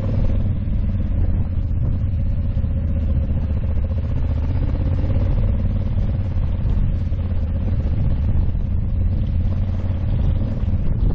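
Honda Africa Twin 1100 DCT's parallel-twin engine running steadily while riding a gravel road, under a heavy, even low rumble.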